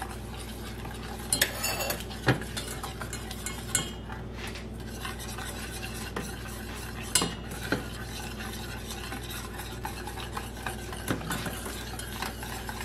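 Wire whisk stirring melted butter and powdered sweetener in a stainless steel saucepan, its wires scraping and clicking against the pan at irregular moments over a steady low hum.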